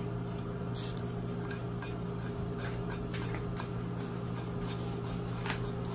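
Faint scattered ticking and crackling from hot oil in a pot as brown sugar is tipped in to melt for browning, with one sharper click about a second in, over a steady low hum.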